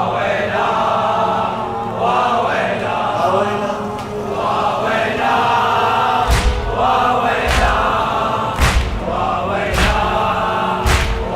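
Male voices chanting a mournful latmiya refrain in chorus. A deep, even beat comes in about six seconds in, a little slower than once a second.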